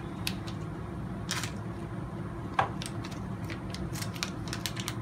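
Small clear plastic parts bag crinkling and crackling in the hands as it is handled and opened, an irregular run of short crackles with a sharper click about halfway through, over a steady low hum.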